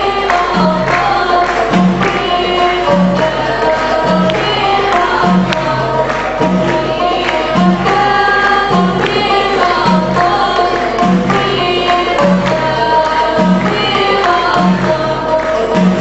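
Schoolgirls singing a song into microphones over music with a steady, repeating low beat.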